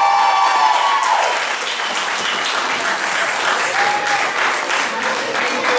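Audience applauding, a dense even clapping. The last held note of the dance music ends about a second in.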